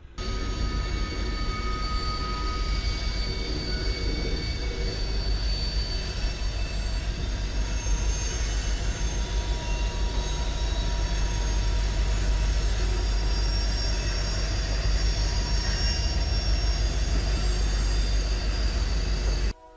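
Freight train rolling past close by: a steady rumble of steel wheels on rail, with high-pitched wheel squeal that comes and goes.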